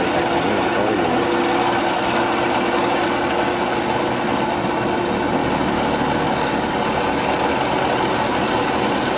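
A small farm tractor's engine running steadily under load as it pulls a rotary water-channel cutter through flooded rice-paddy mud. The churning and splashing of the mud mixes in.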